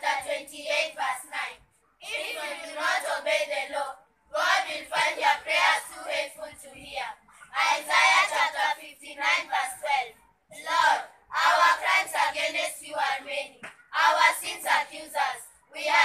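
A children's choir voicing words together in unison, in phrases of a few seconds with short breaks between them.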